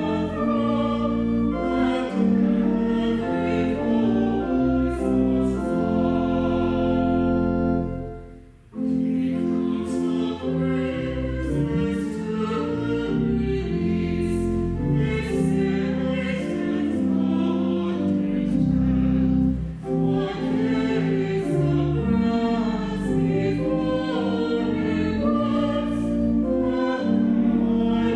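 A small group of voices singing a hymn in unison with pipe organ accompaniment. There is one short break about eight seconds in, between verses.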